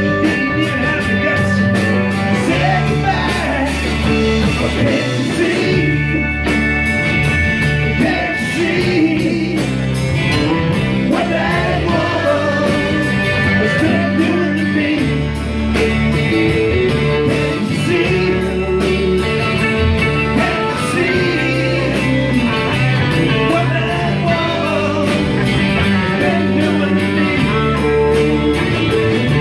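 Live rock band playing a classic rock song: electric guitar, bass and drums with a male lead vocal over them.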